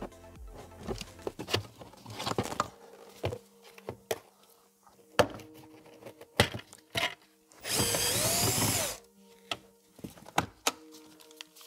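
Cordless drill-driver running once for about a second, about two-thirds of the way in, its motor pitch rising and falling as it backs out a glove-box screw. Clicks and knocks of plastic trim and tools being handled come before and after it.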